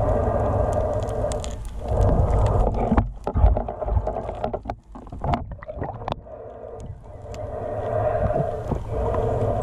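Muffled underwater sound picked up by a camera held below the surface: a low water rumble and hiss that swells and fades, dropping away briefly twice, with scattered sharp clicks and ticks in the middle stretch.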